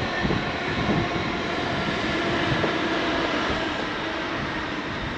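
A steady engine drone, holding an even level throughout.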